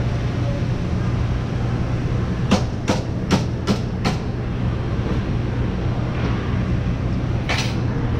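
Steady low hum of a fast-food counter, with a quick run of five sharp clacks about half a second apart a few seconds in, and another clack near the end.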